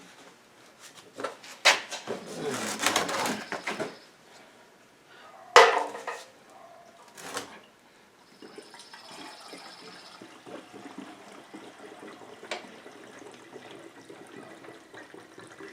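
Gasoline being poured from a can into a push lawn mower's small fuel tank: a few knocks and clatter from handling the can, then a steady pour running through the second half.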